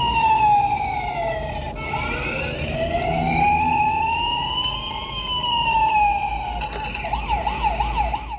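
Toy ambulance's electronic siren: a slow wail that sinks and rises again, switching near the end to a fast warble of about three cycles a second, then cutting off suddenly.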